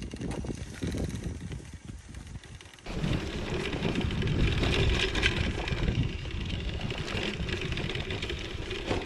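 Wind rumbling on the microphone, then from about three seconds in the louder rolling and rattle of a bicycle ridden along a rough dirt track, with wind noise over it.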